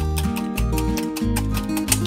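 Background music with a steady beat, bass notes and a plucked-string melody.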